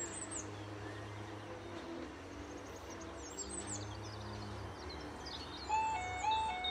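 Birds chirping over a low steady rumble, then near the end the miniature warning light crossing's audible alarm starts: a loud electronic two-tone signal stepping back and forth between a higher and a lower note about every third of a second, the warning that a train is approaching and the light has turned red.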